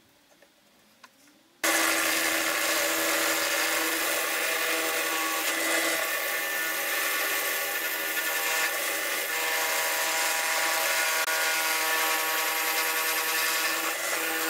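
Drill press running with a cherry-wood block spinning in its chuck and a rasp held against it: a steady rasping scrape of wood over the motor's hum, as the block is turned round by hand. It starts suddenly about a second and a half in, after near silence.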